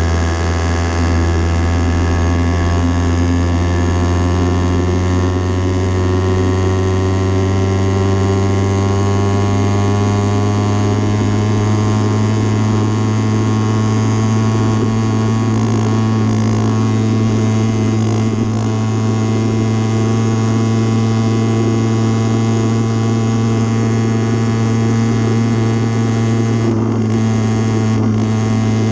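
An 80cc motor bike's engine running under way, its pitch climbing slowly over the first ten seconds or so as the bike gathers speed, then holding steady.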